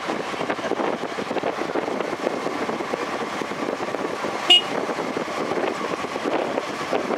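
Steady rushing of wind and tyres from a bicycle rolling along in a group of cyclists. About halfway through there is a single short high ring.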